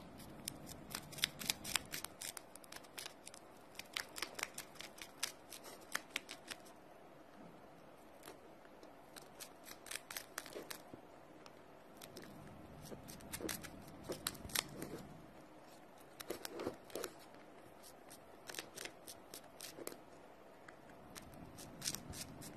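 Small sharp clicks or snips in irregular flurries over a quiet background. They are thickest in the first six seconds and come in short clusters after that.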